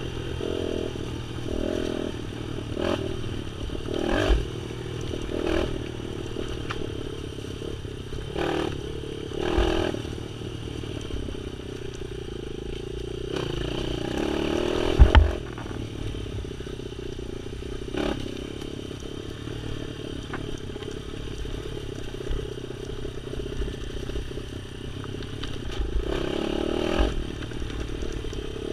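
Off-road motorcycle engine running and revving up and down over rough trail, with clattering knocks and scrapes from the bike over bumps and a loud thump about halfway through.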